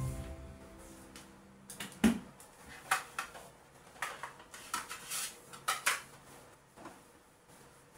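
Dishes and kitchen utensils being handled: a series of clinks and clatters, the loudest about two seconds in, thinning out after about six seconds.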